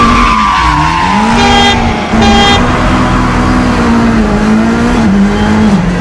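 Red Subaru WRX sedan's engine running hard, its pitch rising and dipping with throttle and gear changes. A siren sinks in pitch over the first couple of seconds, and a car horn blasts twice in short honks about one and a half and two and a quarter seconds in.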